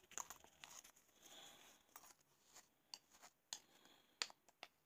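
Faint, scattered light clicks and a brief soft scrape: a metal teaspoon handled against a container while scooping powder.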